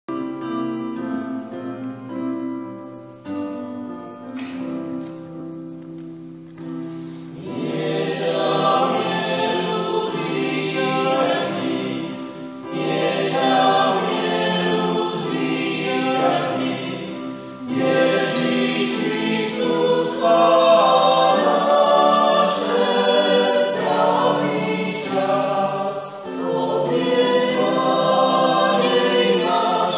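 Choir singing a sacred song in parts, starting softly with held chords and swelling to full voice about seven seconds in, with brief pauses between phrases.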